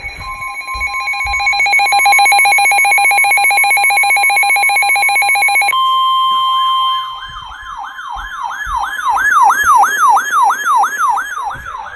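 NOAA Weather Radio warning alert tones. A steady alarm tone sounds with a fast-pulsing beep over it for about six seconds. The steady tone then carries on alone briefly, and is followed by a wailing siren alarm rising and falling rapidly, two to three times a second. Together they signal that a new warning message is about to be broadcast.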